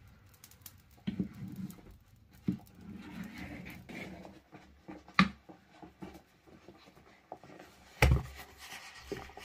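Scattered clanks of a metal ladle and large cooking pot over a wood fire, then a heavy thump about eight seconds in as the pot is set down on the dirt floor.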